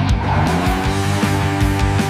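Background music with a steady beat, mixed with a race car engine and tire-squeal sound effect.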